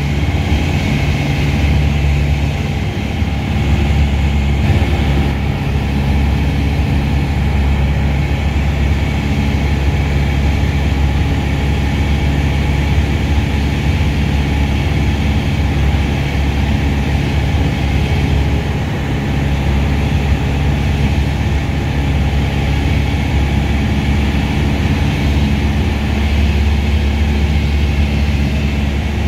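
Piper PA-28-181 Cherokee Archer II's four-cylinder Lycoming O-360 engine and propeller running steadily, heard from inside the cabin as a loud, even drone.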